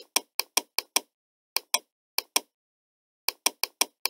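Computer mouse clicking in quick pairs, press and release about a fifth of a second apart, about eight times with a short pause about two and a half seconds in, as a trading chart is dragged and scrolled.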